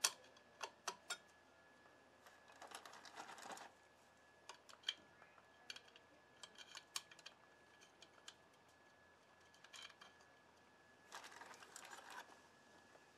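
Faint scattered clicks and clinks of oil-soaked friction and steel clutch plates being slid onto the Honda VTX1800's clutch basket, with two brief stretches of light scraping, about three seconds in and again near the end.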